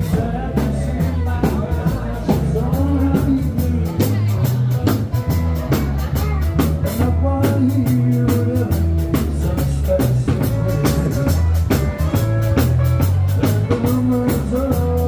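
Rock-style background music with a steady drum beat, bass and held melody notes.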